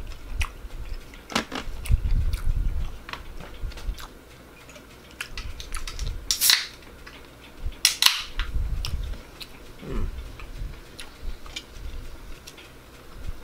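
Close-miked mouth noises of someone chewing a mouthful of Big Mac: wet clicks and lip smacks with soft low thuds, and two louder sharp noises about six and eight seconds in.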